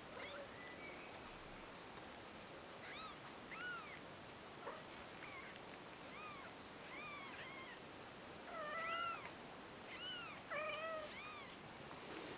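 Newborn Persian kitten mewing: about a dozen short, high-pitched cries, each rising then falling, coming closer together and louder in the second half.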